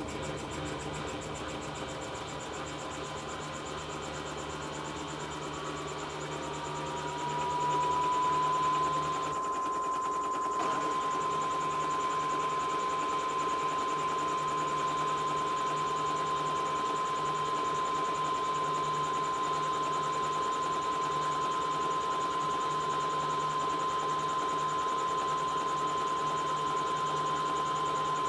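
Samsung washing machine running: its motor whine rises in pitch about six to nine seconds in, then holds as a steady high whine over a low hum.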